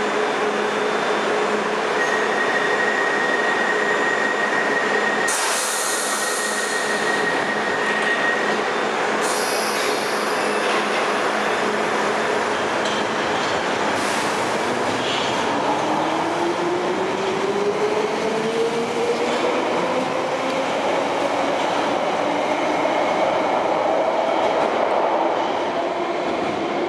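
London Underground 1973 stock tube train pulling out of the platform. A steady high tone and several short sharp hisses come in the first half, then a motor whine rises steadily in pitch as the train accelerates away, over wheel squeal and rail clatter.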